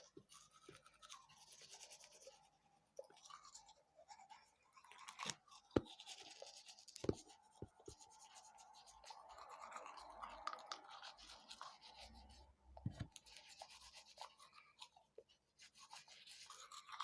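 Faint scrubbing of a toothbrush on teeth, in stretches of scratchy hiss broken by short pauses, with a few sharp knocks about five to seven seconds in.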